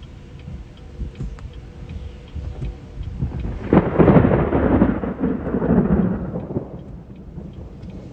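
Thunder: a low rumble, then a sudden loud peal about four seconds in that rolls on for two to three seconds and dies away.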